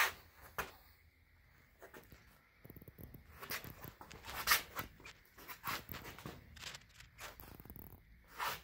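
Soft, irregular rustles and scuffs of a person moving about and shifting position, with a couple of louder swishes about halfway through and near the end.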